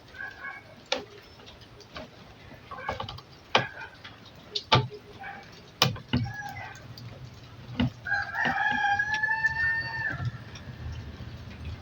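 A rooster crows once about eight seconds in, one long call of about two seconds that drops at the end. Before it come a scatter of sharp clicks and knocks and a few short clucking calls.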